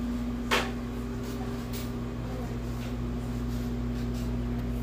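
Steady mechanical hum of room equipment, a constant low drone with one steady tone in it, broken by a single sharp click about half a second in.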